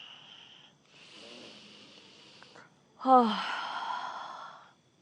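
A person breathing audibly close to the microphone: a longer breath from about one to two and a half seconds, then, about three seconds in, a sighing exhale that starts with a falling voiced tone and trails off into breath noise.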